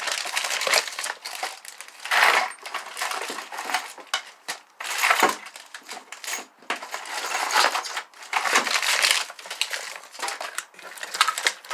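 Rummaging through tools and parts: irregular rustling, scraping and clattering with many sharp clicks and knocks, in several surges.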